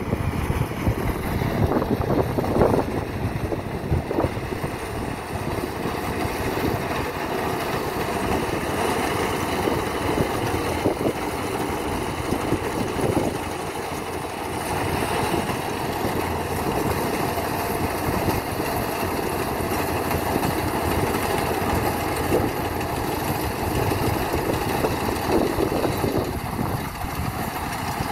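ACE ACT 60 combine harvester running steadily as it cuts and threshes ripe paddy rice.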